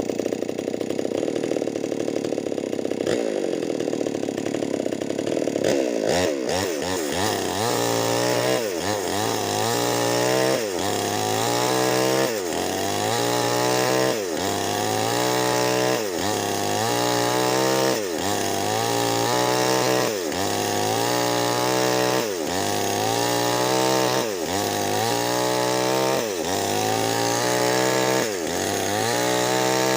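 Two-stroke Nixon chainsaw with a 25-inch bar, ripping Medang wood lengthwise under load. After a steady first six seconds, the engine's pitch rises and sags about every two seconds as the cutting load varies.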